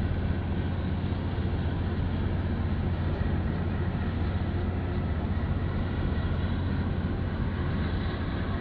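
Steady low drone of a huge container ship's engines as it passes close at slow speed, over a constant outdoor hiss.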